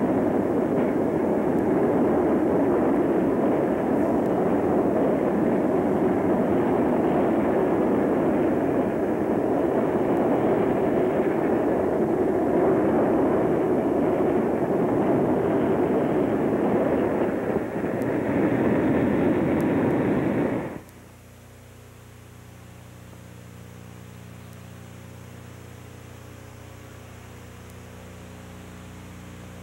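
Freight train rolling past close by, a loud steady rumble that cuts off suddenly about twenty seconds in, leaving only a low steady hum.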